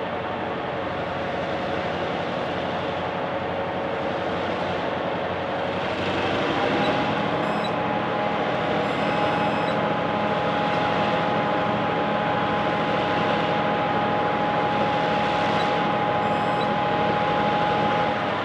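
Vintage S-class and B-class diesel-electric locomotives running under heavy load as they slowly haul a loaded grain train up a steep grade. About six seconds in, the engine note steps up in pitch and gets louder, then holds steady.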